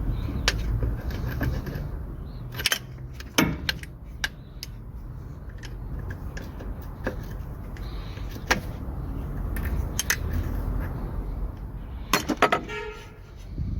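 Hand tools clinking and knocking on metal as a 19 mm socket and wrench are worked on the diesel engine, with scattered sharp clicks and a quick run of clicks near the end. A low steady hum runs underneath.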